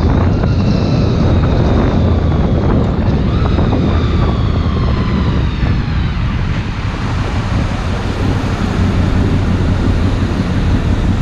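Wind buffeting the microphone over the running V4 engine of a Honda VFR800 motorcycle on a wet road. The engine note falls away over the first several seconds as the bike slows, then settles lower.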